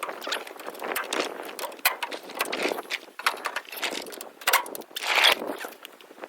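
Metal parts and hand tools clinking, clattering and scraping in an irregular run of sharp clicks and short scrapes, from hands-on work on a combine. The loudest scrape comes about five seconds in.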